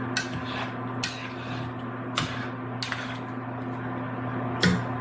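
A spoon knocking against a cooking pot as stew is stirred, five short clinks about a second apart, over a steady low hum.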